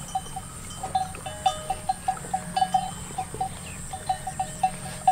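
Bells on grazing water buffalo clinking at an uneven rate, several knocks a second, at two slightly different pitches, over a faint steady background hum.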